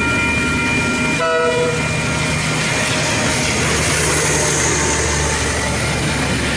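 Level crossing warning bell ringing. About a second in, a diesel freight locomotive gives a short horn blast, then rumbles past with its container wagons clattering over the crossing.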